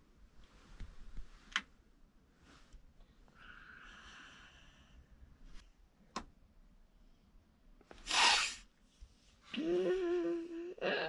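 A young child waking from sleep: a quiet room with a few small rustles and clicks, then about 8 seconds in a short breathy hiss, followed near the end by a drawn-out sleepy vocal moan that rises in pitch and then holds.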